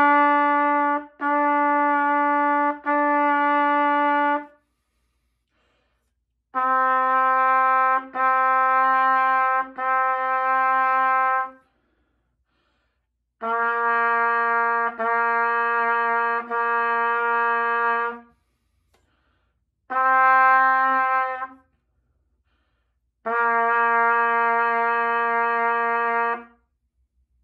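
Solo trumpet playing a slow beginner exercise of half notes and half rests: three held notes, a rest, repeated three times, then one note, a rest and a longer final whole note. Each note is separately tongued and steady in pitch.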